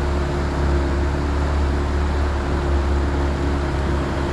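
Boat's outboard motor running steadily, a constant low hum under an even wash of noise.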